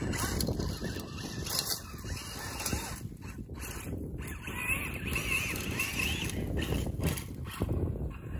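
Wind buffeting the microphone: an irregular low rumble that rises and falls, with no clear engine or motor note.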